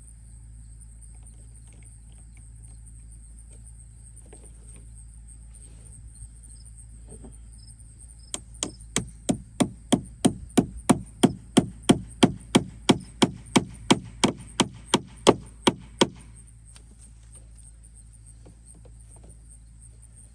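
Hammer tapping a fastener into a wooden deck board to tack down drip tubing: a quick, even run of about two dozen blows, three to four a second and growing louder, starting about eight seconds in and stopping suddenly some eight seconds later. Lighter scattered knocks of handling come before and after.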